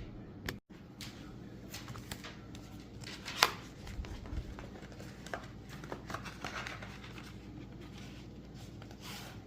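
Light handling noises of thin mica sheets and their packet: scattered small clicks and rustles, with one sharper tick about three and a half seconds in.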